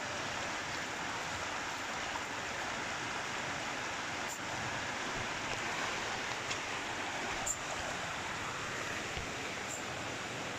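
Steady rushing of a fast-flowing stream, with a few faint clicks.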